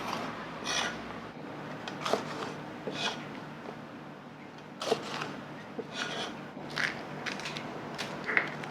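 Eating at a table: scattered light clicks and scrapes of tableware, with crisp crunches as fried food is bitten and chewed.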